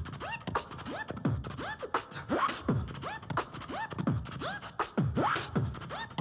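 Vocal beatbox beat: short rising whoops every half second or so over deep, falling bass hits.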